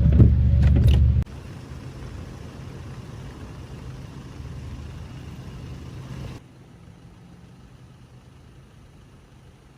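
A motor vehicle's engine running with a low steady hum, loud at first and cut abruptly to a quieter hum about a second in, then fading to a faint steady background noise past the middle.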